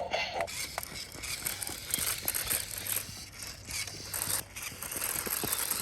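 Small electric motor and plastic gearbox of a remote-control velociraptor toy running, with a hissy grinding noise and scattered plastic clicks as it moves.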